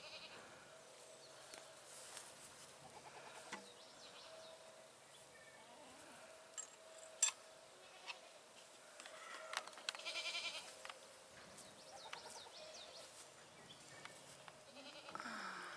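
A goat bleating faintly about ten seconds in, over a quiet background with a few light knocks.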